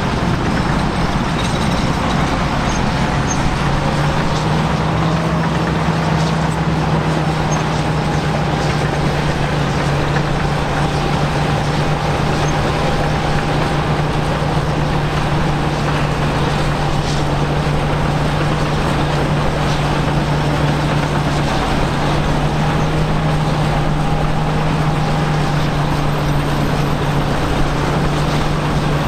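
Heavy diesel engines of Caterpillar D8K crawler dozers running steadily under load, a constant low engine note with a mechanical din over it.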